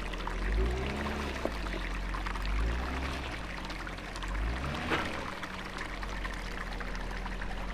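Jeep Wrangler engine revving in slow swells as it crawls over rocks, with two sharp knocks of rock under the Jeep, about a second and a half in and about five seconds in, over a steady rushing noise.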